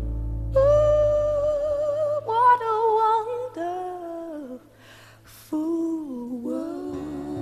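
Background music: a voice humming a wordless melody over soft accompaniment, with a brief pause about five seconds in.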